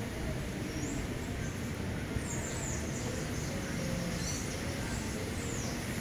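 Steady background noise with several faint, short, high chirps falling in pitch, from small birds.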